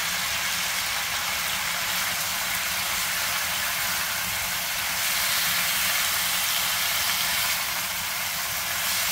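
Bacon, cabbage and green onions sizzling in oil in a frying pan while being tossed with silicone spatulas: a steady hiss, a little louder about halfway through.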